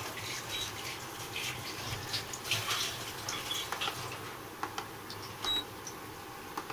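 Hot oil sizzling and crackling around moong dal vadas deep-frying in a kadai: a steady hiss with scattered small pops.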